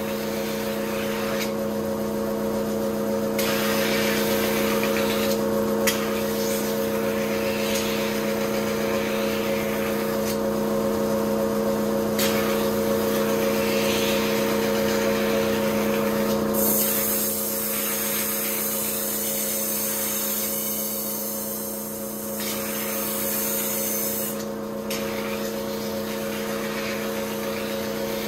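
Kitchen knife being ground on a motor-driven sharpening wheel: the machine hums steadily while the blade's grinding hiss swells and fades with each pass, with a longer, brighter stretch of hissing in the second half.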